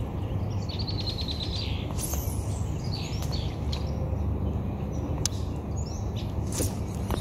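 Songbirds chirping and calling around the water, including a quick trill about a second in and a falling whistle shortly after, over a steady low rumble. A couple of sharp clicks sound near the end.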